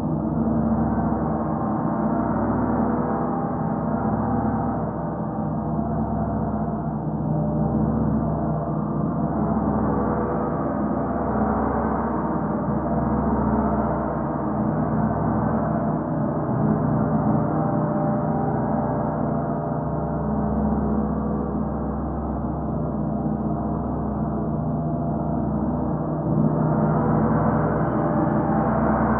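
Gongs ringing continuously, a dense wash of overlapping tones that swells and ebbs every few seconds and grows louder a few seconds before the end.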